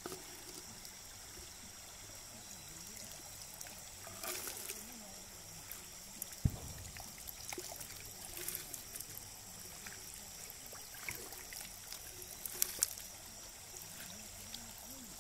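Water trickling and dribbling as small fish are shaken out of the end of a fishing net into a steel bucket, with a few brief louder spurts.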